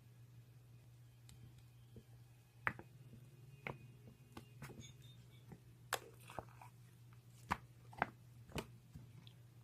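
Slime being squeezed and pressed by hand, giving sharp crackling pops irregularly about every half second to second, starting a few seconds in, over a faint steady low hum.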